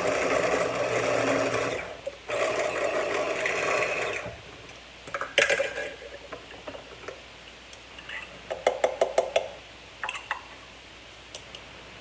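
Electric food chopper motor running in two pulses of about two seconds each with a short break, then stopping. Scattered light clicks and knocks follow, with a quick run of ticks a little before two-thirds of the way through.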